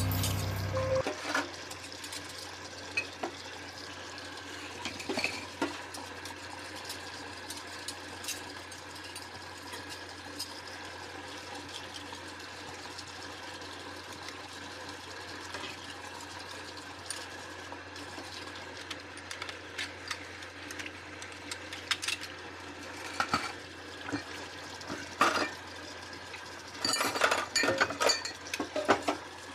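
Hand dishwashing at a sink: water running steadily while dishes and cutlery clink and knock now and then, with a busier stretch of clatter near the end.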